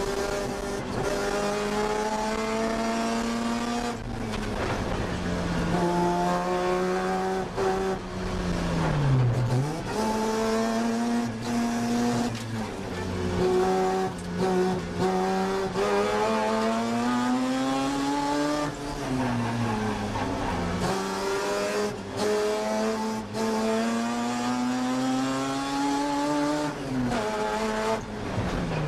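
1982 Mazda RX-7's rotary engine heard from inside the stripped race cabin, revving hard and climbing in pitch through the gears. The pitch drops sharply at each shift or lift for a corner, the deepest dip about nine seconds in.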